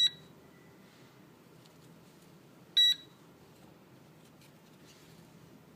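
RFID reader beeping as it reads the chip in an LED wristband: two short, high-pitched electronic beeps about three seconds apart, the first right at the start.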